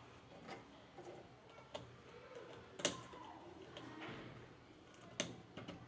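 A few scattered sharp plastic clicks and taps, the loudest about three seconds in, as wiring-harness plugs are pushed back onto a tumble dryer's control board.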